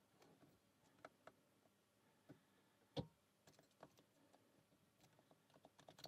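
Near silence broken by a few faint, short clicks of a lock pick working the rotating wafers of a Fichet Bauche M2 safe lock, the loudest about three seconds in.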